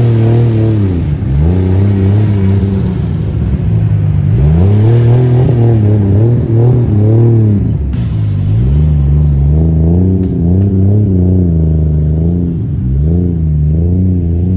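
Car engine being revved over and over, its pitch climbing and falling in a series of rises, over a steady low idle.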